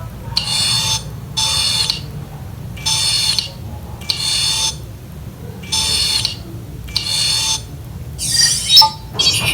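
Smartphone pop-up camera sound effect from an OPPO Reno2 F, a short bright electronic chime played over and over in pairs, six times in all. Near the end a different sweeping effect plays, then another starts.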